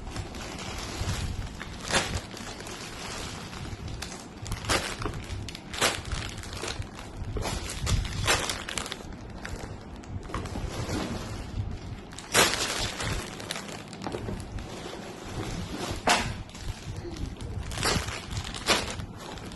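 Plastic bags of LEGO pieces being handled and taken out of the box: irregular sharp crackles and clatters of plastic, a dozen or so louder ones spread across the stretch.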